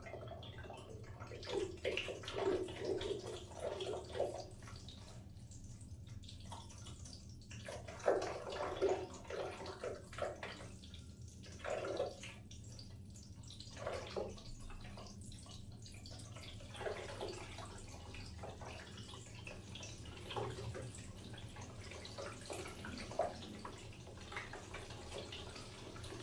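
Water dripping and splashing in irregular spurts, clusters a few seconds apart, over a low steady hum.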